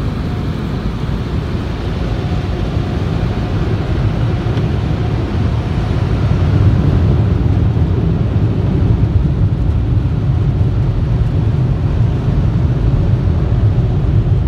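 Automatic tunnel car wash running, heard from inside the car's closed cabin: a steady low rumble of water and wash machinery that grows louder about six seconds in.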